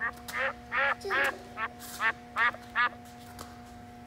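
A white domestic duck quacking in a quick run of about eight quacks, which stop about three seconds in.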